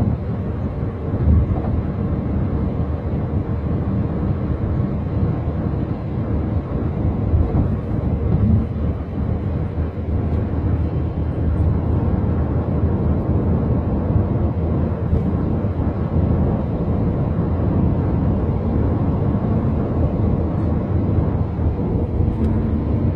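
Steady road and engine noise inside the cabin of a moving car, a deep, even rumble.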